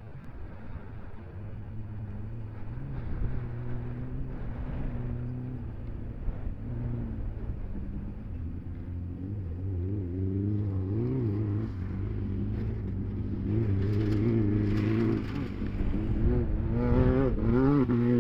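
Engines of racing speed UTVs, starting faint and growing steadily louder as they approach, the pitch wavering up and down with the throttle.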